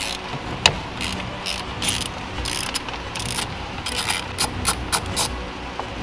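Hand ratchet clicking in short back-and-forth strokes, about ten in a row, while backing out the bolts that hold the airbag behind the steering wheel. A single sharp click comes just under a second in.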